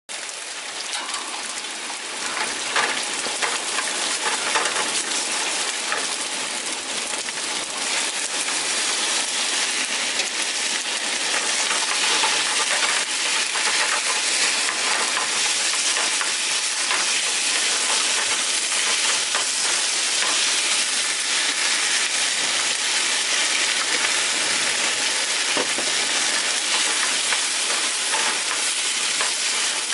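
Rice frying in a small square mess-kit frying pan: a steady sizzle that builds a little over the first few seconds, with a wooden Japanese cypress spatula stirring and scraping through the rice in soft clicks.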